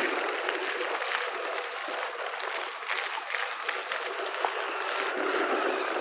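Steady hiss of splashing, spraying water, with many small scattered ticks.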